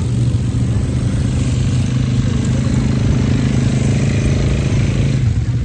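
Quad bike engines running at low speed on sand, a loud, steady, low engine hum.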